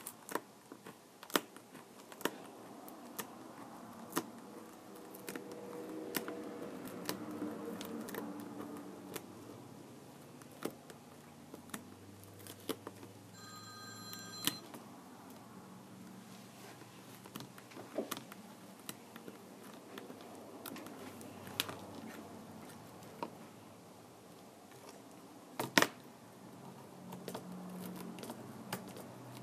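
Scattered sharp clicks and taps of small tools and plastic parts being handled on a tablet during repair, with one louder snap near the end. About thirteen seconds in, a short electronic tone sounds for a second or so, like a phone alert.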